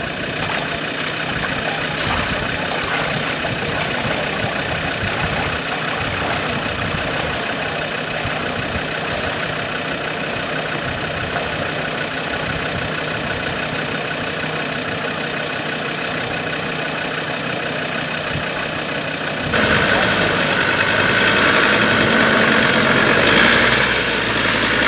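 A vehicle engine running steadily at idle. About twenty seconds in, the sound jumps abruptly louder and brighter.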